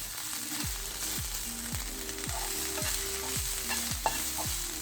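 Onion masala frying in coconut oil in a pan, a steady sizzle with stirring, under background music with a steady beat. There is one sharp click near the end.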